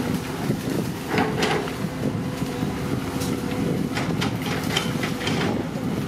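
Excavator's diesel engine running steadily under work, with a number of sharp metallic clanks and knocks from the machine at irregular intervals.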